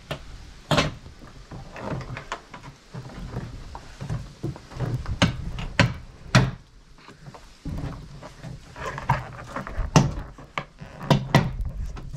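Plastic clips of a Ford Kuga's tailgate interior trim panel popping and the panel knocking as it is pried loose with a plastic trim removal tool: a string of irregular sharp clicks and knocks.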